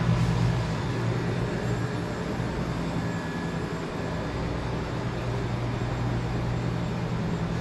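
Steady low hum of grocery-store freezer and cooler cases running, with a light hiss over it.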